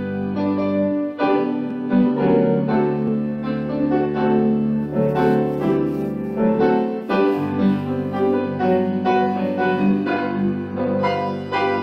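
An instrumental hymn played on piano: chords and a melody line over held low notes, at a slow, even pace.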